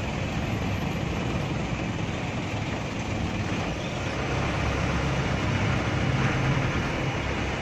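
Mitsubishi 120 PS diesel engine of an old city bus running steadily under way, heard from inside the cabin beside the driver, mixed with road and traffic noise. The drone swells a little about five seconds in, then eases.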